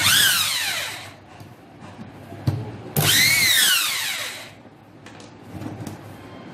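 Electric drill driving out the screws on an angle grinder's gear head, run in two short bursts about three seconds apart. Each time its whine falls in pitch as the motor slows. A sharp click comes between the bursts.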